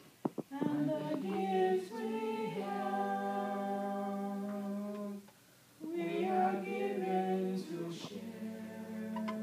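Unaccompanied singing of long held notes, in two phrases with a short break a little past halfway.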